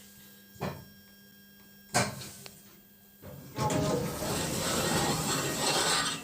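Kone EcoDisc lift: a low steady hum, a click, then a sharp knock about two seconds in, followed from about three and a half seconds by a loud, even rushing noise.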